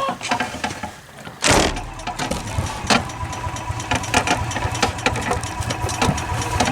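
An engine cranks and catches about a second and a half in, then runs unevenly with a rapid, irregular ticking. It is a cold start on a freezing morning, and the engine is reluctant to run.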